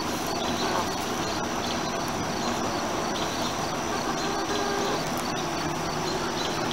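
Steady drone of a greenhouse exhaust fan, with faint clucks from hens now and then.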